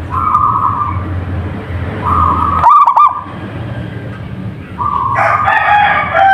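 Zebra dove (local perkutut) cooing: short notes near the start and again at about two seconds, then a sharp looping note just under three seconds in. From about five seconds a longer, fuller call with several pitches layered together.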